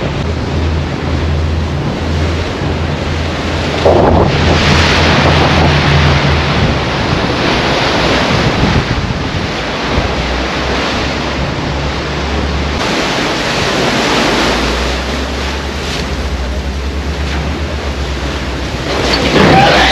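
Water rushing and spraying along a pilot boat's hull at speed, with wind buffeting the microphone and a steady low diesel-engine drone underneath. The engine note shifts a little about two-thirds of the way through.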